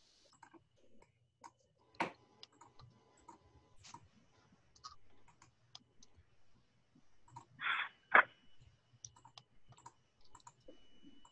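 Scattered computer mouse clicks and keyboard key presses, quiet and irregular, with a louder click about two seconds in and the loudest about eight seconds in, just after a brief rustle.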